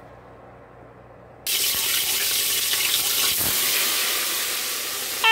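Cut potatoes going into hot oil for deep frying: a sudden loud sizzle starts about a second and a half in, then a steady hiss of bubbling oil.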